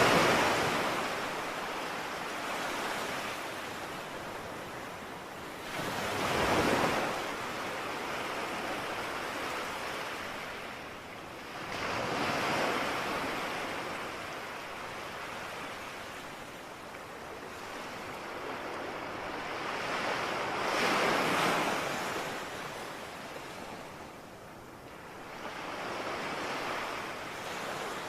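Sea waves breaking on a shore in slow surges: each one swells up into a rush and falls back, about every six to nine seconds.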